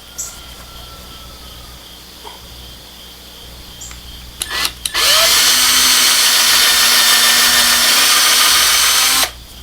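Electric drill with a small bit spinning up and drilling a hole for about four seconds, then stopping suddenly; a few light clicks come just before it starts.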